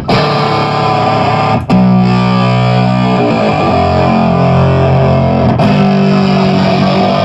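Electric guitar played through a Brass Child distortion pedal: loud, gritty distorted chords, each held and sustaining, struck anew about a second and a half in and again a little past halfway.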